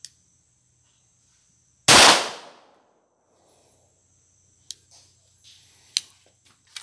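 A single pistol shot about two seconds in, its report dying away over most of a second. Then a few light metallic clicks as the pistol's slide is worked by hand to clear the gun.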